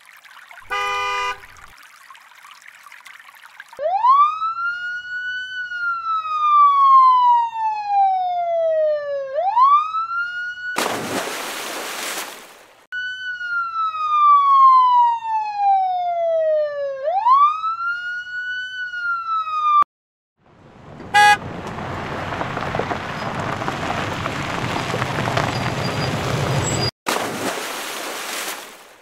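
Emergency-vehicle siren wailing, each cycle rising quickly and falling slowly over about four seconds, heard twice in pairs of cycles. Between and after the siren come loud rushing noise bursts, and short horn beeps sound near the start and about twenty-one seconds in.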